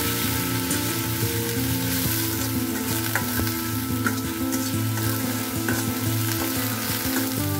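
Wet onion paste sizzling in hot oil with fried onion slices in a kadai, stirred with a metal slotted spatula that clicks and scrapes against the pan now and then.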